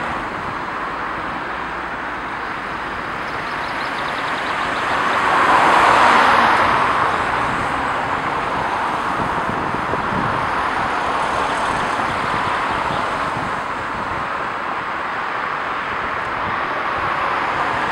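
Road traffic: cars passing in a steady wash of tyre and engine noise, one car passing close and swelling loudest about six seconds in.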